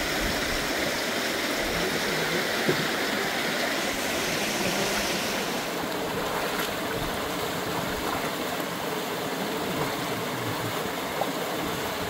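Steady rush of flowing river water, its hiss easing a little about halfway through.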